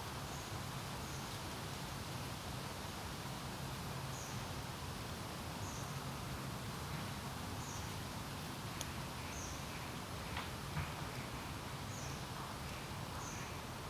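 Wind blowing steadily with a low rumble, while a small bird repeats short, high call notes about every second. A few lower bird chirps join near the end.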